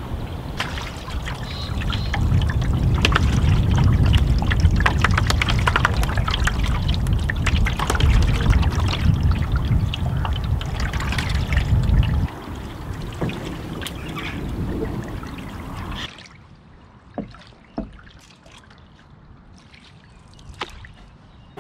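Paddle strokes from a cedar-strip canoe: water pouring and trickling off the paddle and lapping at the hull, with wind rumbling on the microphone through roughly the first twelve seconds. The last few seconds are quieter, with two light knocks.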